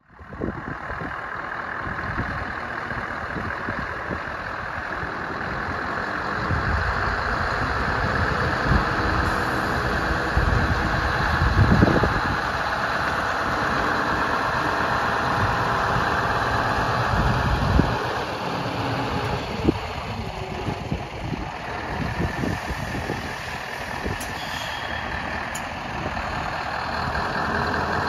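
Scania R164's 16-litre V8 diesel engine running steadily, at times near idle, a little louder through the middle with a brief swell about twelve seconds in.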